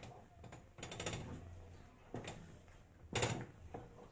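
Wooden stick beating and stirring thick finger-millet dhindo in a metal karahi: several irregular knocking, scraping strokes, the loudest about three seconds in.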